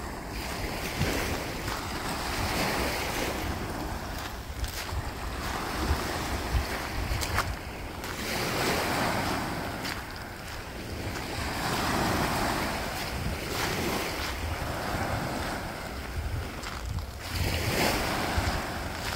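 Small Baltic Sea waves breaking and washing up a pebbly shore, the surf swelling and fading every few seconds. Wind rumbles on the microphone underneath.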